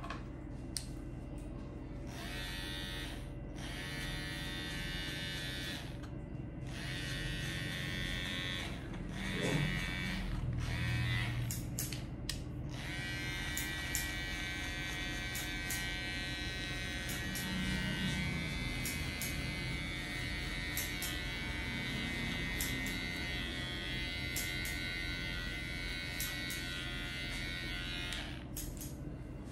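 Electric hair clippers buzzing as they cut a fade. In the first part they buzz in short stretches with brief breaks; from about halfway they run steadily, then stop shortly before the end, with a few light clicks along the way.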